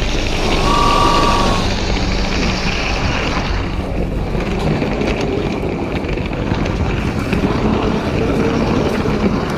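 Motorised Lego train running along plastic track, heard from a camera riding on it: a steady rumble of motor and wheels with a faint hum. A brief high beep sounds about a second in.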